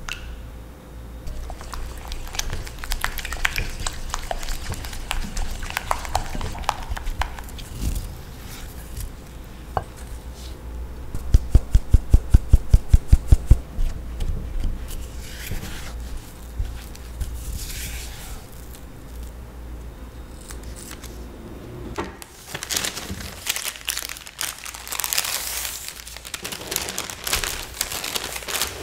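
Silicone spatula stirring and scraping egg white into creamed butter in a glass bowl. Near the middle comes a quick run of about a dozen loud, even taps as a sieve is tapped to sift cake flour into the bowl, followed by more spatula mixing. In the last quarter there is plastic crinkling as the dough is loaded into a plastic piping bag.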